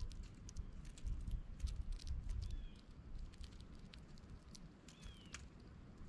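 Small birds pecking and cracking sunflower seeds on a concrete bird bath rim close to the microphone: a run of quick, irregular clicks and taps. Two short, falling chirps come about two and a half seconds in and again near five seconds.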